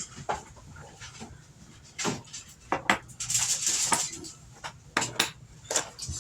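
Kitchen dishes and utensils clattering: a series of separate sharp clinks and knocks, with a short hiss about three seconds in.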